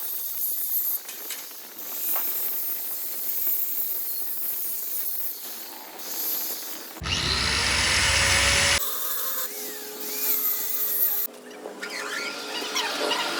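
Power tool running on metal: a steady grinding hiss, with a loud stretch of about two seconds past the middle that opens with a rising motor whine, and a few faint squeaks after it.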